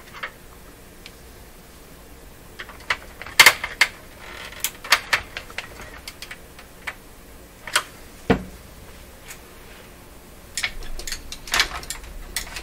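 Scattered clicks and taps of a screwdriver working screws out of a plastic stereo cabinet and hands handling the case, with one duller knock past the middle and a cluster of clicks near the end.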